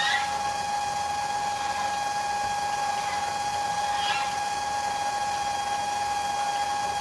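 Small electric motor running steadily, a constant high whine over a hiss.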